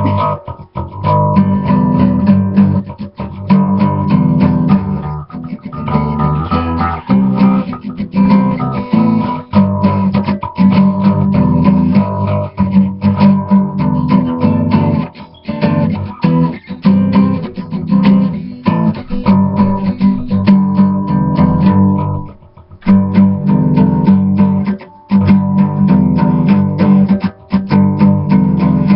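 Guitar playing with plucked and strummed notes, heavy in the low end, loud enough to clip the laptop's built-in microphone. The playing breaks off briefly a few times, longest a little past two-thirds of the way in.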